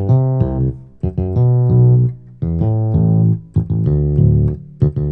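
Keyboard playing a demonstration bass line under chords: a string of held notes, each about half a second to a second and a half long. The left hand moves in the same octave, starting from the fifth of the chord.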